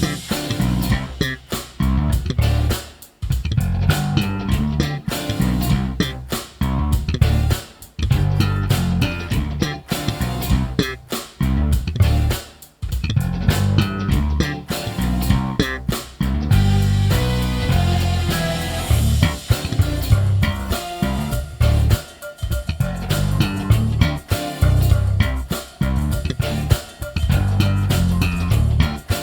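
Zeline J5 five-string jazz-style electric bass playing a busy, funky bass line over drums, the low notes changing quickly, with a few short breaks in the line.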